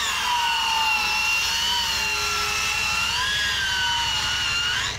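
Handheld electric circular saw ripping a wooden plank lengthwise, its motor whining steadily under load as the blade cuts. The pitch rises sharply just before the end.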